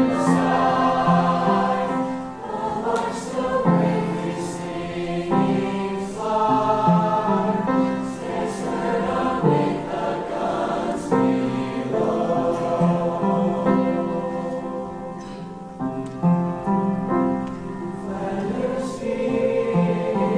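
A large mixed choir of men and women singing, holding sustained chords that change every second or two.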